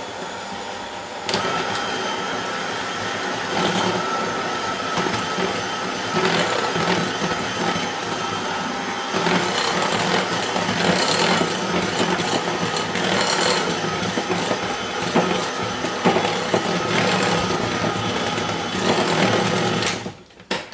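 Electric hand mixer running, its beaters mixing thick cake batter in a glass bowl. The motor grows louder about a second in and cuts off near the end.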